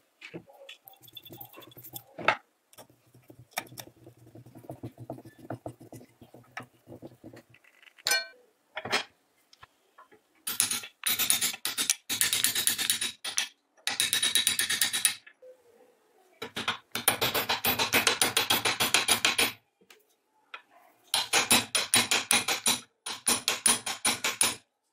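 Rapid metal-on-metal tapping on a pin punch set in a cast-iron grinder tool-rest bracket held in a vise, driving a pin out. It comes in three runs of fast taps separated by pauses. Before the tapping there are only light clicks of parts being handled.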